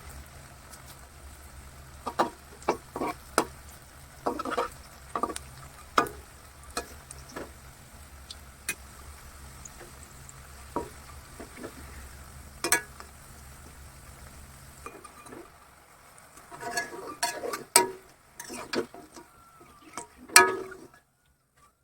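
Kitchen utensils knocking and scraping against a pan or dishes, in scattered single clicks and then a busy run of clatter near the end, over a low steady hum that stops about three quarters of the way through.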